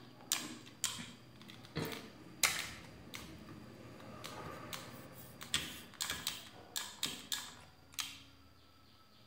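Irregular light clicks and taps of a small salvaged TV circuit board and its wires being handled on a hard tabletop, coming thicker in a quick cluster over the last few seconds.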